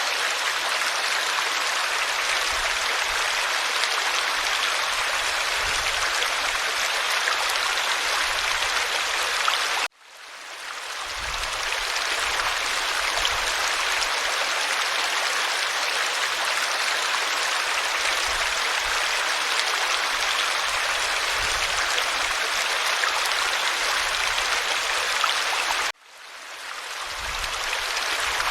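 Forest stream flowing steadily, an even rushing babble of water. It cuts out suddenly twice, about ten seconds in and again near the end, and fades back up each time.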